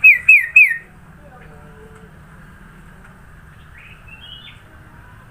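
Sooty-headed bulbul (kutilang) calling three loud, quick whistled notes, each sliding downward. A few faint chirps follow about four seconds in.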